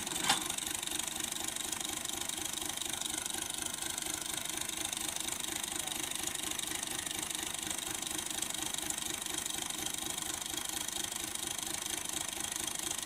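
Fiat 480 tractor's diesel engine running steadily with an even, fast pulse. A single sharp knock sounds about a third of a second in.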